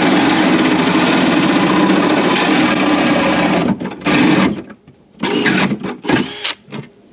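Power drill driving a hole saw through an aluminum truck-bed floor. It runs steadily and under load until about three and a half seconds in, then gives a few short bursts with pauses between them.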